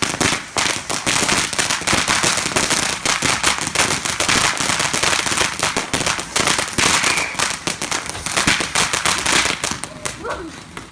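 Fireworks crackling in a dense, rapid string of sharp cracks and pops, dying away near the end.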